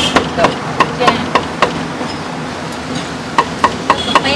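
Meat cleaver chopping cooked meat on a round wooden chopping block, sharp strikes about three a second. The chopping pauses for a moment about halfway, then comes back as a quicker run of strikes near the end.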